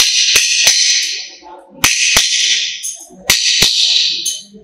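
Hand hammer striking a steel rod on an anvil: seven blows in groups of three, two and two, each ringing brightly and dying away over about a second.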